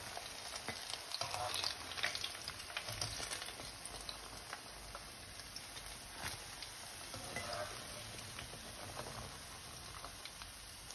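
Hot oil sizzling and crackling in a frying pan as batter-coated chicken kebabs are lifted out with a wire skimmer, with a few light clicks among the crackle.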